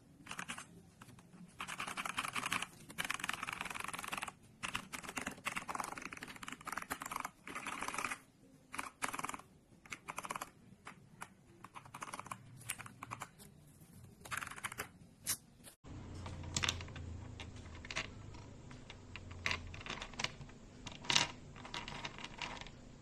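Mechanical keyboard switches clicking, key presses in quick runs like typing. About two-thirds of the way through the sound changes abruptly to sparser single clicks over a low hum.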